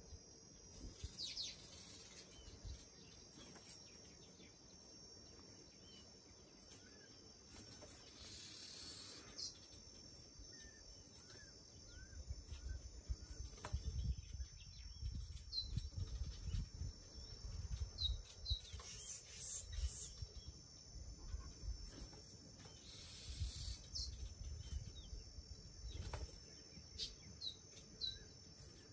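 Faint outdoor ambience: steady high insect trilling with scattered short bird chirps. From about halfway in, low rumbling noise on the microphone comes and goes.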